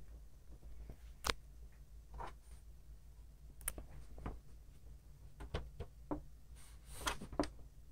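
Scattered sharp clicks and taps from a hand working the plastic control knobs and casing of a Lakewood window fan, with a little group of clicks near the end, over a faint steady low hum.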